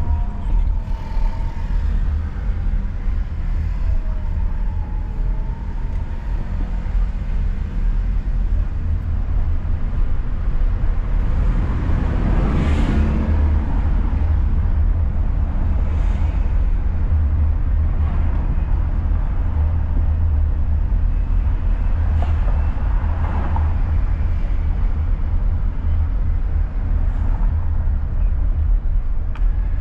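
Steady low rumble of a car driving, engine and road noise, with a louder rush that swells and fades near the middle.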